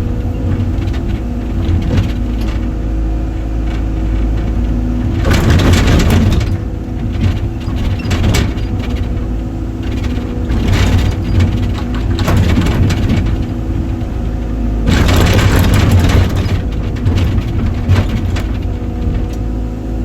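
Excavator engine running steadily under load, surging louder twice, with scattered cracks of tree roots and wood breaking.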